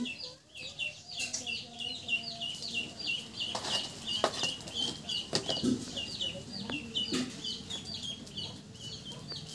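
A chick peeping over and over: short, high, falling chirps, about four a second. A few knocks and clatters come partway through as firewood is pushed into the stove.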